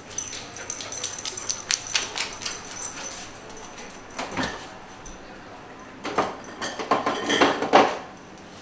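A dog fetching a beer from a refrigerator: scattered clicks and knocks at first, then a louder cluster of knocks and rattles in the last few seconds.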